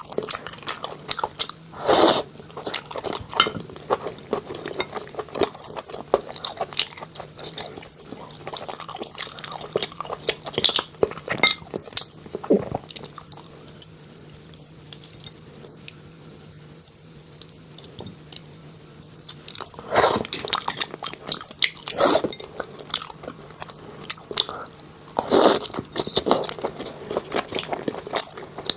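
Close-miked mouth sounds of someone chewing and biting food: a dense run of small wet clicks and crunches. Several louder bites or crunches stand out, about two seconds in and again three times in the last third.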